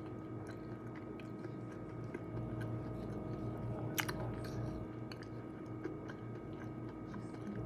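A man chewing and biting nuts, with small clicks and one sharper crack about four seconds in, over a steady faint hum.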